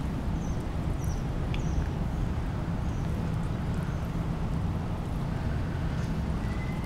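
Steady low background rumble, with a few faint, short high bird chirps in the first couple of seconds and one brief thin note near the end.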